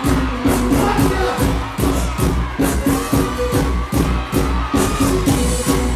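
Loud music with a heavy, steady beat, with crowd noise under it.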